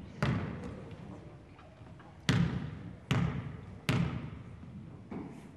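A basketball bouncing on a hardwood gym floor: five separate bounces at uneven spacing, each echoing through the gym.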